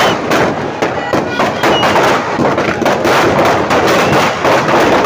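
Firecrackers packed inside a burning Ravan effigy going off in a rapid, continuous crackle of bangs.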